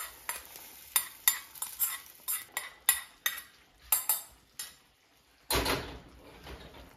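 A steel spoon clinking and scraping against a small black kadai, about a dozen sharp taps, as a tempering of green chillies and garlic in mustard oil is knocked into a pan of spinach curry. About five and a half seconds in comes one louder, longer clatter.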